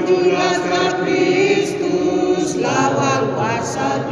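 A choir singing a hymn.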